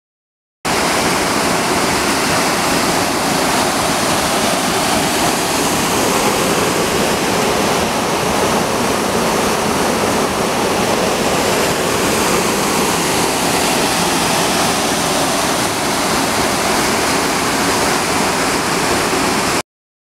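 Steady rush of water from the Hirikatu Oya stream at the Nonpareil Estate waterfall, pouring over rocks. It cuts in just after the start and cuts off suddenly near the end.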